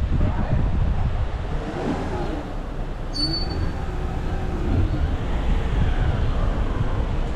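Steady low rumble of tyre and road noise from a car driving along a motorway, with a brief high-pitched tone about three seconds in.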